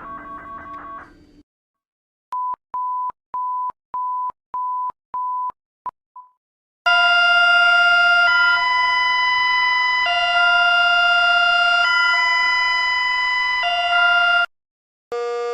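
Emergency-alert-style alarm tones: seven short, evenly spaced single-pitch beeps, then a loud, harsh chord of steady tones that jumps between pitches every second or two and cuts off suddenly. A rising siren starts just before the end.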